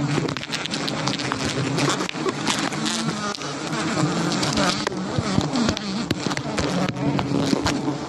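A colony of giant honey bees buzzing en masse around their open hanging comb: a dense, steady drone of many wingbeats at slightly different pitches.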